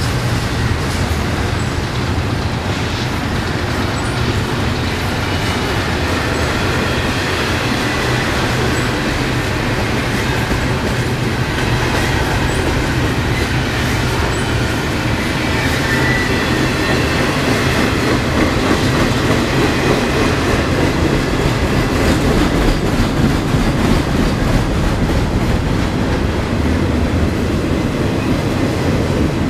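CSX double-stack container train's well cars rolling past, a steady rumble and clatter of steel wheels on the rails. A faint high wheel squeal comes in about halfway through.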